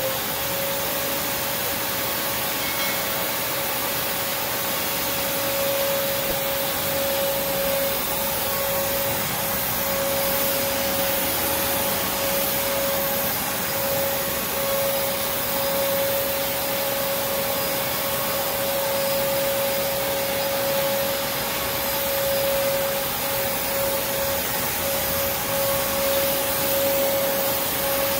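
Prolux X8 Elite backpack vacuum running steadily: a constant whine over an even hiss, the motor reaching its full pitch right at the start.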